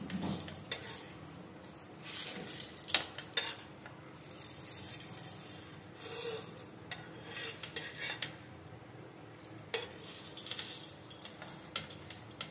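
Steel spatula scraping and tapping on a tawa in short, irregular strokes as a roll is folded and pressed flat, over a faint sizzle of it frying in a little oil.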